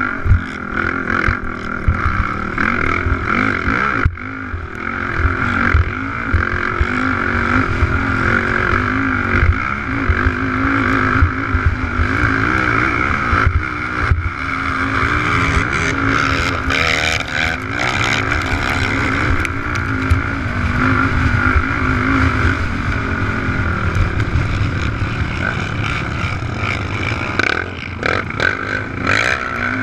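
Racing quad's engine running hard at high revs, its pitch rising and falling with the throttle, picked up by the onboard camera, with frequent knocks as the ATV crosses rough dirt.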